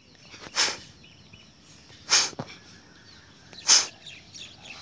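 Three forceful exhalations through the nose, each a short sharp puff about a second and a half apart: the rhythmic pumped breathing of kapalbhati pranayama.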